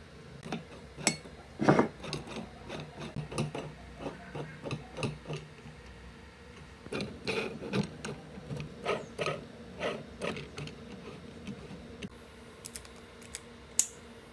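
Socket ratchet wrench tightening the flange bolts on a metal electric-motor housing: runs of ratchet clicks and metal-on-metal knocks in two spells, with a short pause about six seconds in and a few sharp clicks near the end.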